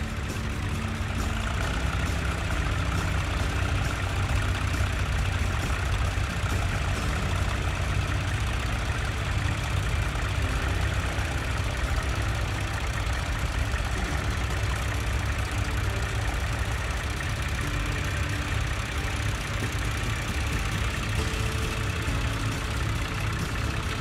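Engine of a vintage grey Ferguson tractor running steadily at low speed while it pulls a plough through the field.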